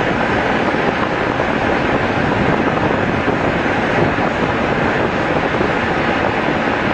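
Steady rushing noise of wind on the microphone over open sea, loud and even throughout, with no distinct engine tone.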